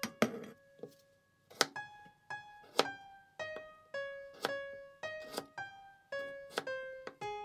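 Light background music: a melody of short plucked, piano-like notes, with a few sharp taps among them.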